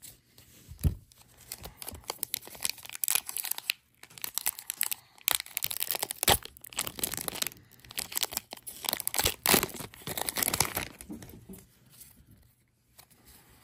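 A foil Magic: The Gathering collector booster wrapper being torn open and crinkled by hand, a dense crackling with a few sharp louder rips, dying down near the end.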